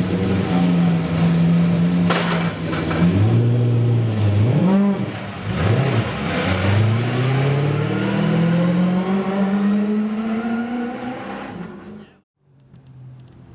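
Holden Commodore V8 Supercar's race V8 engine blipping its throttle several times while stationary, then pulling away with a long rising pitch that fades. The sound cuts off suddenly near the end.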